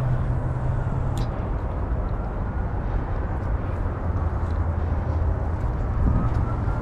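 Steady outdoor rumble of wind on the microphone mixed with distant city traffic, with a faint click about a second in.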